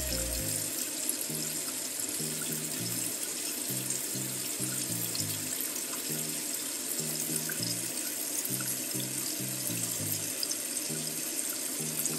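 Tap water running steadily into a stainless sink, a constant rushing hiss, with background music's low bass notes underneath.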